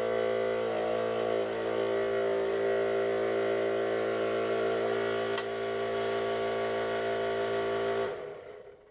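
Benchtop scroll saw running steadily, its motor humming as the blade cuts through 5 mm plywood; it is switched off near the end and quickly runs down.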